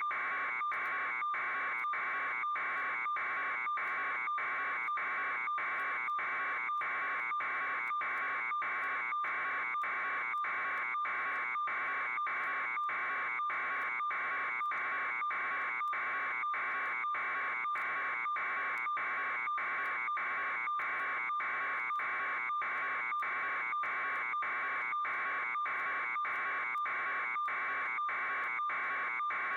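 An electronic buzzing tone pulsing evenly, a little faster than once a second, at an unchanging level.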